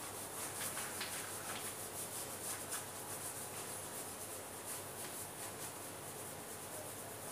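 Marker writing being wiped off a plastic-covered chart sheet used as a whiteboard: a series of quick rubbing strokes across the sheet, busiest in the first few seconds.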